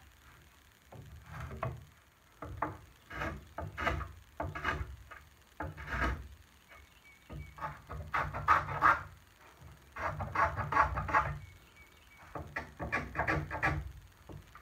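Lie-Nielsen 60-1/2 rabbeting block plane cutting a chamfer on a wooden chair leg. It goes in bursts of quick, short scraping strokes with short pauses between the bursts.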